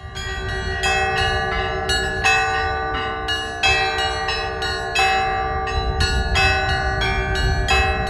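Russian Orthodox church bells rung by rope from the belfry in a festive trezvon: quick repeated strikes of the small treble bells, about three to four a second, over the lasting ringing tones of the larger bells.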